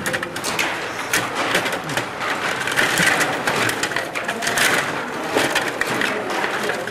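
Stiga table hockey game in fast play: a dense, irregular clatter of clicks and knocks as the rods are pushed and twisted and the plastic players strike the puck and the boards.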